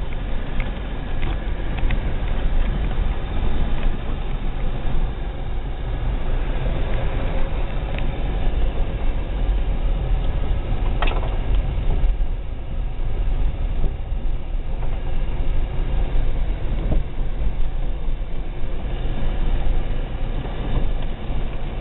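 Dodge Caravan minivan driving over a wet, rutted dirt track, heard from inside the cabin: a steady low rumble of engine and tyres, with occasional knocks as it jolts over the ruts, the sharpest about halfway through.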